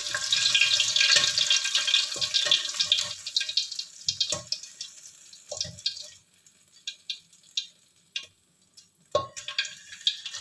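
Hot cooking oil sizzling and crackling in a wok as fried cempedak fritters are lifted out with a slotted spoon, the flame under it just turned off; the sizzle dies away about halfway through. A few metal clinks of the spoon against the wok are scattered through.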